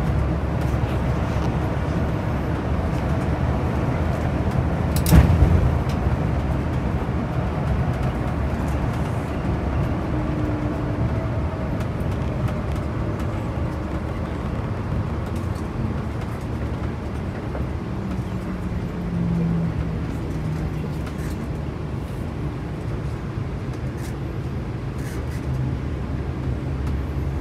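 Coach bus engine and road noise heard inside the cabin, steady and mostly deep, with one sharp knock about five seconds in.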